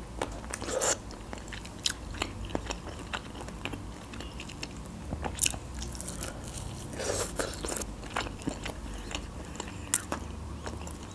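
A person biting into and chewing a piece of stewed chicken, with a string of small clicks and a few louder bites scattered through.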